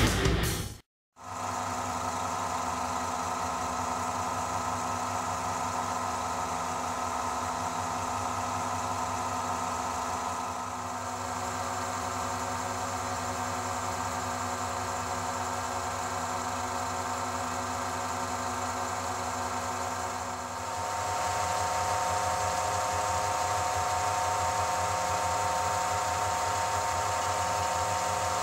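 Lathe motor running steadily, turning an acrylic tube: a hum made of several fixed tones over a light hiss. About twenty seconds in the tones shift and the hum gets a little louder.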